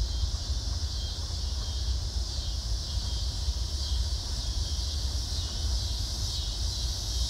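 Outdoor ambience: a steady, high-pitched chorus of insects, with low wind rumble on the microphone.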